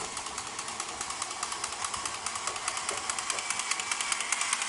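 Radio-controlled, battery-powered Echo Toys toy train locomotive running along its track in reverse: its small electric motor whirs with a rapid, even clicking.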